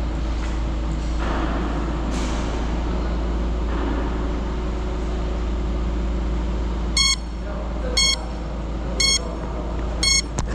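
Small FPV whoop drone's motors and propellers whirring steadily. From about seven seconds in, a short electronic beep sounds about once a second, four times.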